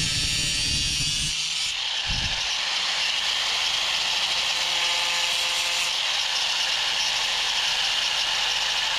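A handheld power tool running steadily with a continuous hiss. Rhythmic background music fades out in the first second and a half.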